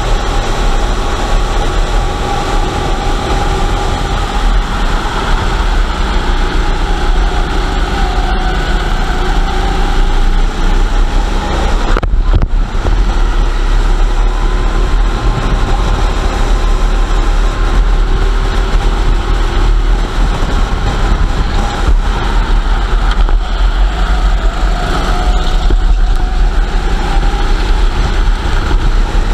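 Racing kart engine running hard, heard from the kart itself, its pitch rising and falling with the throttle through the corners, over a steady low rumble. The sound dips briefly about twelve seconds in.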